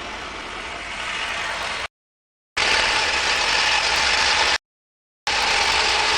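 Snowblower engine running steadily as it clears the driveway. The sound drops out completely twice, for well under a second each time.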